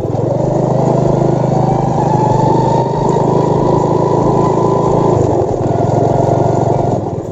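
A small engine running steadily at close range, with a change in its low hum about five seconds in.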